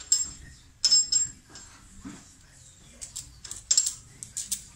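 Steel hand tool clinking and tapping against the steel dies of a workshop machine, a T-handle hex key worked into the die stack. The loudest clink comes about a second in, with a short metallic ring, and a quicker run of clinks follows near the end.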